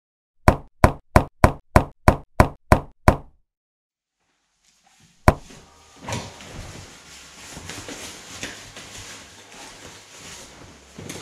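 Nine sharp knocks, evenly spaced at about three a second. After a pause comes a single sharp click, then the irregular rustle and clatter of ski-touring gear and bags being handled in a small room.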